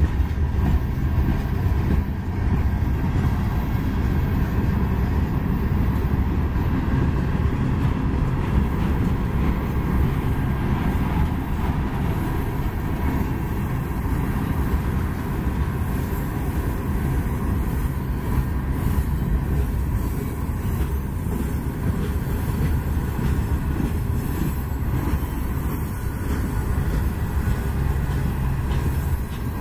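Freight train of gondola cars rolling past close by: a steady rumble of steel wheels on the rails.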